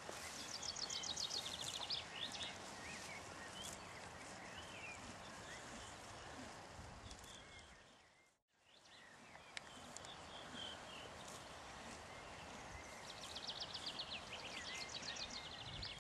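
Quiet outdoor ambience with a songbird singing a rapid trill of falling high notes ending in a flourish, once near the start and again near the end, with scattered chirps between. The sound drops out briefly about halfway through.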